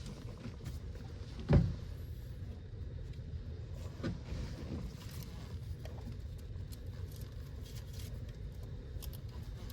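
Handling knocks of work under the hood, with one loud knock about one and a half seconds in and lighter ones around four seconds, over a steady low rumble.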